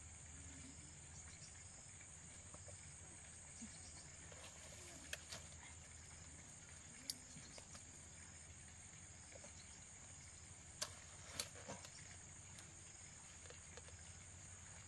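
Faint, steady, high-pitched insect chorus, with a few scattered sharp clicks or taps, the loudest pair about eleven seconds in.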